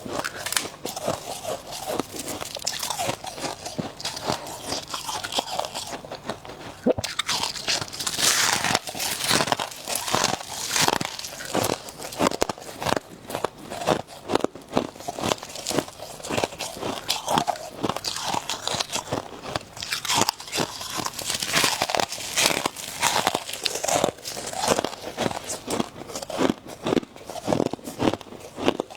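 Ice being bitten and chewed close to the microphone: repeated crisp crunches and crackles throughout.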